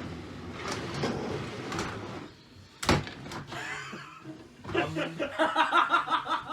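A single sharp knock from Lego combat robots striking each other in the arena, about three seconds in, after a faint rattle of the robots moving; voices follow near the end.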